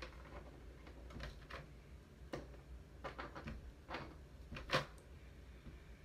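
Small plastic action-figure parts being handled and pressed onto the figure's joints: a scattering of faint clicks and light knocks at irregular intervals, the sharpest about three-quarters of the way through.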